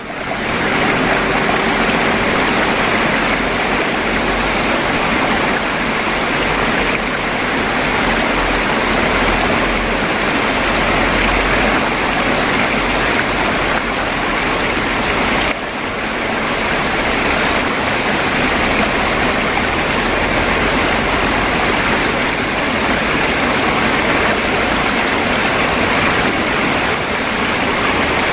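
Stream water babbling and flowing steadily in an even rush. It fades in at the start and dips briefly about fifteen seconds in.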